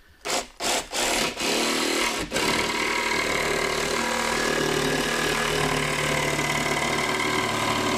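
Makita cordless jigsaw blipped on in a few short bursts, then running steadily as its blade cuts along the edge of a painted wooden boat deck panel.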